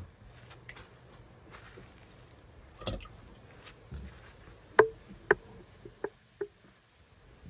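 Raccoons eating tangerines: scattered short wet clicks and smacks, with four sharper ones in the second half.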